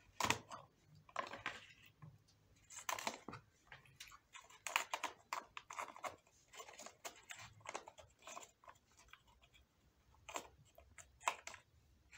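Water-soaked walnuts in their hard shells being handled and set down on a damp towel, the shells knocking and clacking against each other in irregular clicks.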